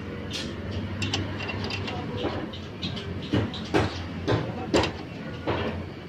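Metal-on-metal clinks of a wrench turning a nut onto a stainless stud bolt in an engine's cast housing, about five sharp clinks in the second half, over a steady low hum.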